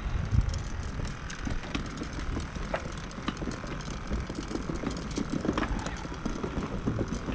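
Footsteps and carried fishing gear clattering along the planks of a wooden pier: a dense, irregular run of small knocks and clicks over a low rumble.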